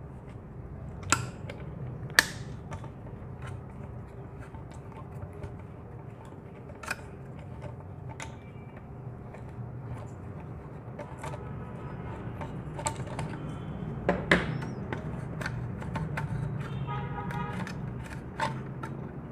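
Scattered light clicks and knocks from hands handling a Legends Cowboy lever-action CO2 air rifle's wooden stock and its screw-on buttplate. The buttplate has been taken off to reach the CO2 cylinder compartment. A steady low hum runs underneath.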